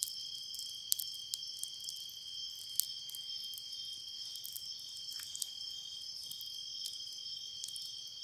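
Crickets trilling in a steady, high-pitched chorus, with sharp crackles now and then from the embers of a burnt-down wood bonfire.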